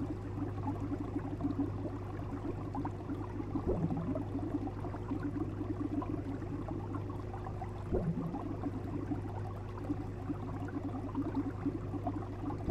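Aquarium pump humming steadily under the fizz of bubbling water, with two soft knocks about four seconds apart.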